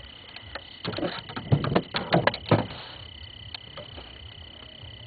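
A quick cluster of knocks and thumps against a fishing boat, about ten in under two seconds, while a just-caught rock bass is handled and unhooked.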